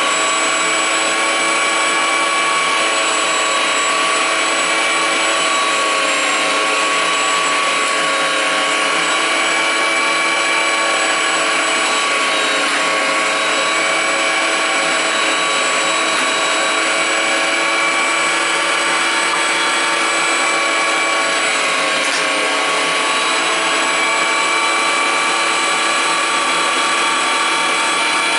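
Bosch electric meat grinder running steadily under load, its motor whining at an even pitch as tomatoes are pushed through the mincing screw and out through the plate.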